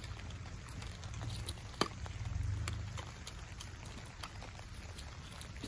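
A garden rake scraping and dragging through soil, with a soft crackling and scattered sharp clicks, one louder a little under two seconds in.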